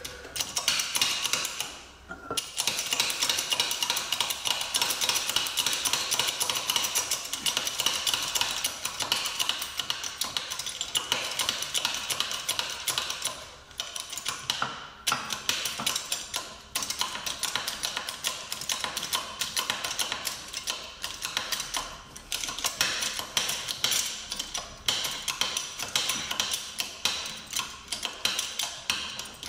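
Ratchet wrench cranked in long runs of rapid clicking, with a few short breaks, driving a socket-and-cup puller to press a suspension bush out of a front lower arm.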